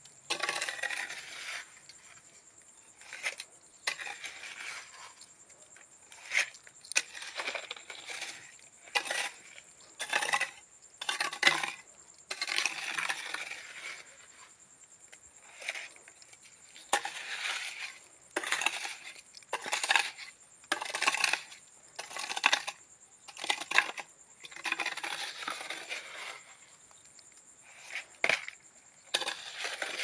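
Wet cement mix being scooped, scraped and packed into a small round ring mould with a long-handled tool, a gritty scrape every second or two, some in quick runs.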